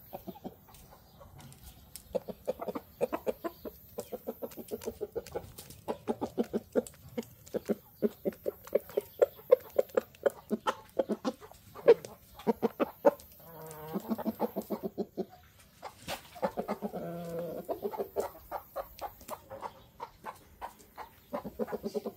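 Chickens clucking in a long run of short clucks, about four a second, broken by longer drawn-out calls about 14 and 17 seconds in. Sharp taps of beaks pecking corn off the concrete are mixed in.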